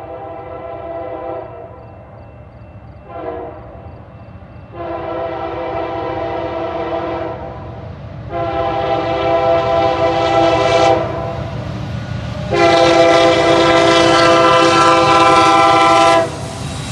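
Freight diesel locomotive's multi-chime air horn sounding a series of blasts: a long blast ending about a second and a half in, a short toot around three seconds, then three long blasts, each louder than the one before as the train draws closer. Under the horn the locomotives' engines rumble, growing louder.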